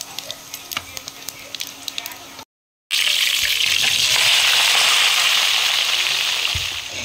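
Hot oil with a spice tempering crackling and popping in a kadhai. After a brief silence, cut potatoes tipped into the pan set off a loud, steady sizzle that eases slightly near the end.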